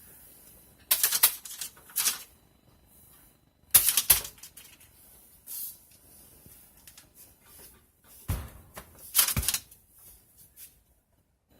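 Unexplained bursts of quick rattling clicks, coming in short irregular clusters about five times with quiet between; the source is unseen, suspected to be a mouse or rat.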